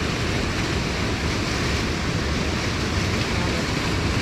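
Flowing creek water rushing steadily, a loud, even noise.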